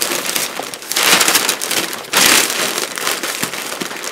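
Sheets of newsprint offcut paper crinkling and rustling as they are wrapped and crumpled by hand around a bundle, with louder crunches about a second in and again just after two seconds.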